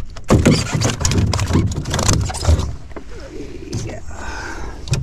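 A hooked crappie splashing and thrashing as it is swung aboard a jon boat: a couple of seconds of rapid splashes and knocks, then quieter.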